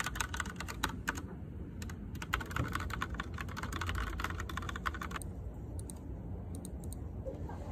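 Typing on a computer keyboard: quick, dense key clicks for about five seconds, thinning to a few scattered keystrokes, over a steady low background hum.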